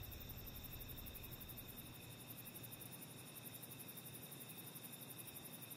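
Near silence: a faint, steady background hiss with a few thin, steady high tones and no distinct events.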